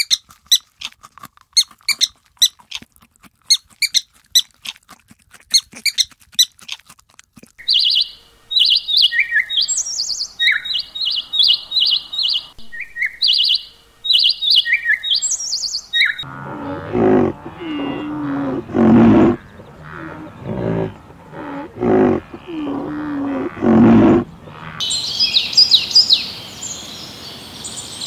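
A sequence of animal sounds: first a run of sharp separate clicks, then budgerigars chirping in short high notes, then a series of low drawn-out calls about a second each, and near the end dense high bird calls.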